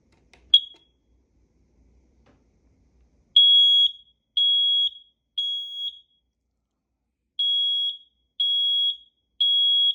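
Smoke alarm giving a short chirp, then sounding its high-pitched beep in two sets of three with a pause between: the three-beep evacuation pattern of a new 10-year sealed-battery smoke alarm being test-sounded after installation.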